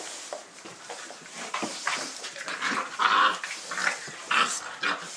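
Dogo Argentino puppies whining and yelping in short squeals, loudest about three seconds in and again near the end, over scuffling in the whelping-box bedding.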